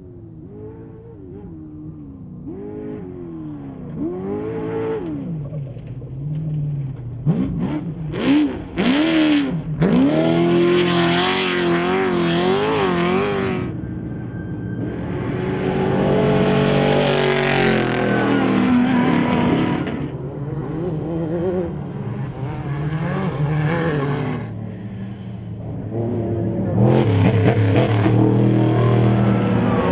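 Off-road desert race vehicles' engines revving up and down through the gears as they race past one after another, with several loud close passes.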